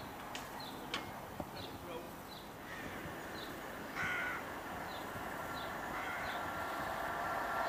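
Small high bird chirps repeat every half second or so, with one brief harsh call about four seconds in. Under them an approaching train, a CrossCountry Voyager diesel unit, grows steadily louder towards the end.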